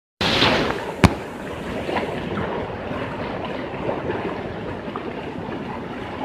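Floodwater rushing along a street: a steady rushing noise, with one sharp knock about a second in.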